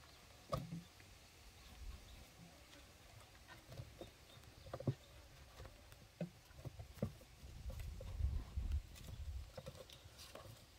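Small kittens scuffling and scrabbling on gravel and a wooden board: faint, scattered patters, scratches and ticks of paws and claws, with a low rumble now and then.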